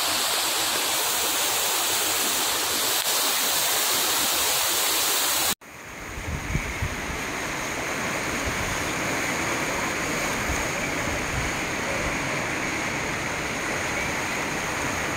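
A steady hiss of rushing water that cuts off abruptly about five and a half seconds in, followed by the lower, steady rush of a muddy floodwater torrent pouring down a narrow channel.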